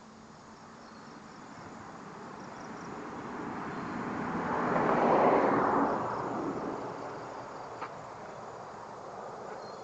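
A vehicle passing by: a rushing noise that swells slowly to a peak about five seconds in, then fades, with faint insect chirps behind it.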